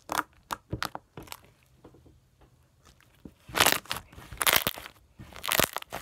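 Hands squeezing and kneading slime, with a few soft clicks and squelches in the first second or so. Three louder crackly squishes follow in the second half as the slime is pressed and air pockets in it pop.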